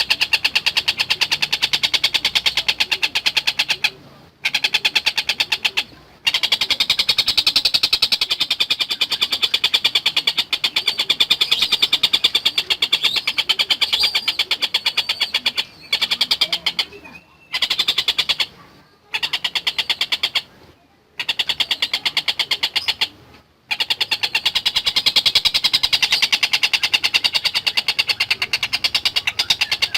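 Tengkek buto bird singing a long, fast, rattling trill. The trill is broken by several short pauses in its second half.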